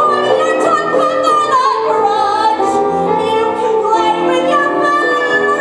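Show-tune music: a female voice singing sustained, slightly wavering notes over instrumental accompaniment.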